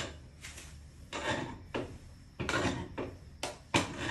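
Wooden spatula stirring thick khichdi in a stainless steel pressure cooker pot, scraping and rubbing against the metal in about six uneven strokes.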